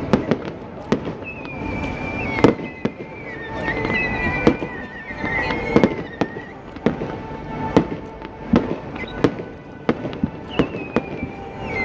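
Fireworks display: aerial shells bursting in sharp bangs, one or two a second, over a steady rumble. A wavering high whistle runs through the first half and comes back near the end.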